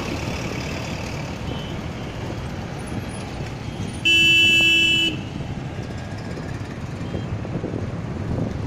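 Road and engine noise from a moving vehicle on a busy highway, with a vehicle horn sounding one steady blast of about a second midway, the loudest sound.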